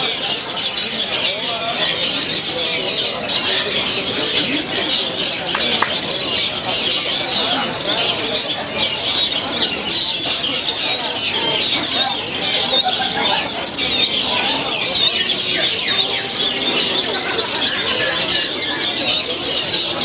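Caged long-tailed shrikes (cendet) singing all at once in a dense, unbroken chatter of chirps and calls, with a faint murmur of voices beneath.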